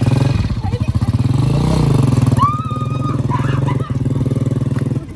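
Small single-cylinder boda boda motorcycle engine running with a steady, even putter, picking up briefly about two seconds in as the rider pulls away.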